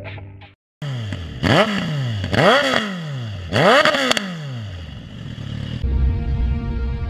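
A motorcycle engine is revved three times, each rev climbing quickly and then falling away. A steady low drone sets in near the end.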